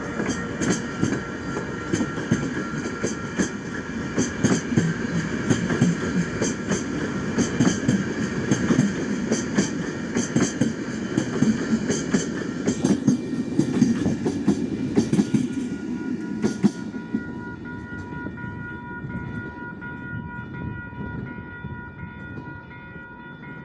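CP Intercidades passenger train running on the rails: a heavy rumble with many sharp wheel clicks over rail joints. After about 17 seconds the clicking stops and the rumble fades, leaving a steady high-pitched tone.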